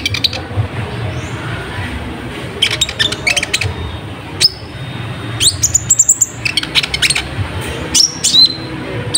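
Kolibri ninja sunbird song: quick clusters of sharp, high chirps and twitters mixed with short rising whistles, coming in bursts about a second apart, over a steady low rumble.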